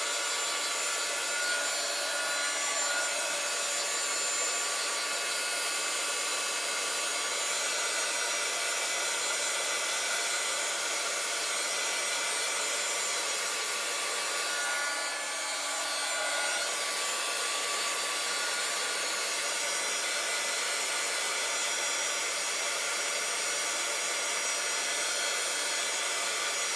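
Handheld craft heat gun running steadily, its motor and fan blowing hot air to dry wet spray ink on a paper tag, a steady hiss with a whine in it. The level dips briefly about halfway through.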